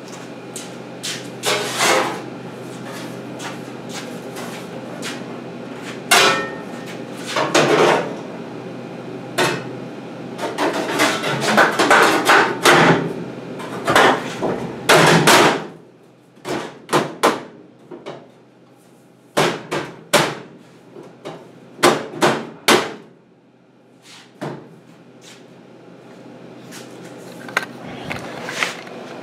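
Sheet-steel replacement floor pan for a 1963 Chevy C10 cab being set in and worked into place, with irregular metal knocks, clanks and taps, some ringing briefly. A steady low hum runs under the first half and stops about halfway through.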